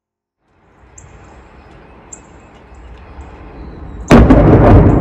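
Thunder from a positive lightning strike: a low rumble builds from about half a second in, then a sudden loud crack about four seconds in that runs on into heavy rumbling. Faint bird chirps sound above it.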